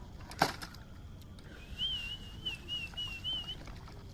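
A sharp knock about half a second in, then a high, wavering whistle that warbles up and down for about two seconds.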